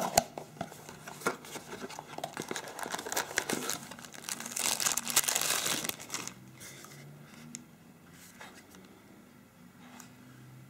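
Clear plastic bag crinkling and cardboard packaging rustling as a phone is unpacked, loudest about four to six seconds in. It then settles to quieter handling, with a few light clicks as the phone is turned in the hands.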